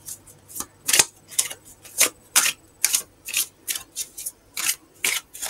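A tarot deck being shuffled by hand: a steady run of short, crisp card snaps, about three a second.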